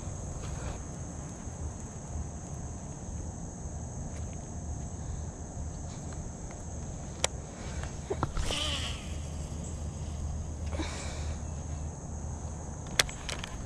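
Steady high insect drone over a low rumble, with two short animal calls, about eight and eleven seconds in, and two sharp clicks.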